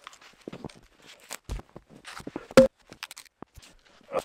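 Footsteps in snow and wooden knocks as logs of firewood are handled and set on a chopping stump, with a dull thud about a second and a half in and one loud, sharp wooden knock about a second later.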